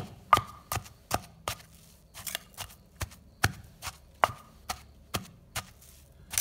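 Pestle pounding in a mortar with steady, even strikes, about two to three a second, pounding fermented fish and chili into jaew bong paste.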